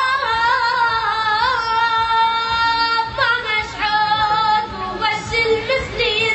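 A solo voice singing a slow, ornamented melody, holding long wavering notes, with a short break about three seconds in.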